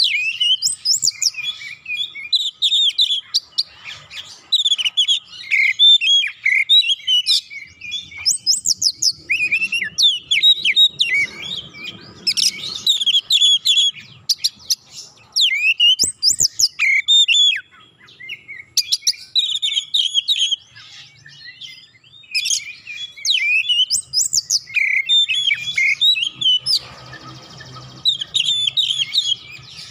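Oriental magpie-robin (kacer) singing a loud, fast, varied song. It comes in bursts of quick rising and falling whistled notes, with short breaks between them.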